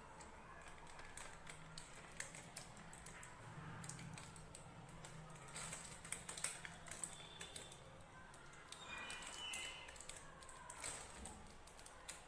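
Faint, irregular small clicks and crinkles: a ballpoint pen tip dotting a line onto a thin plastic piping bag held tight over a coupler, with the plastic crackling in the hands.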